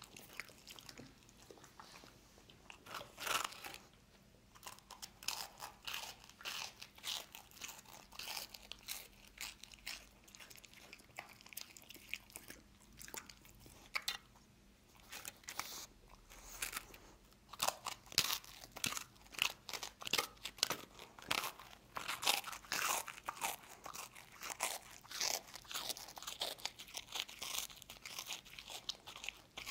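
A dog crunching and chewing peanut butter toast, close up: many irregular, crisp crunches, with a quieter lull about halfway through.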